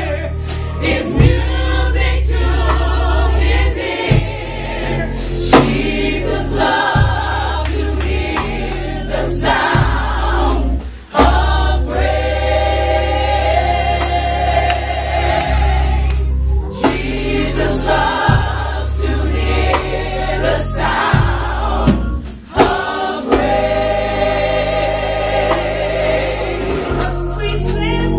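Gospel choir singing in full voice with held, wavering notes, backed by bass and drums.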